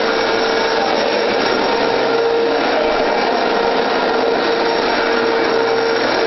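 Vacuum cleaner running steadily close by: a constant rush of air with a steady motor whine.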